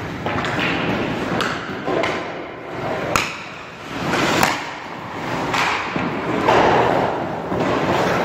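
Skates scraping across rink ice and a hockey stick knocking a puck, with two sharp cracks of the puck a little past three seconds and about four and a half seconds in.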